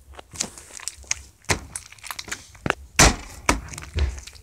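Jiggly slime being squeezed and slapped roughly, giving an irregular run of sharp clicks and pops, the loudest about three seconds in.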